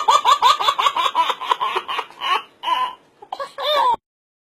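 A baby laughing in a rapid run of high giggles, about six a second, then a few separate laughs before the sound cuts off suddenly near the end.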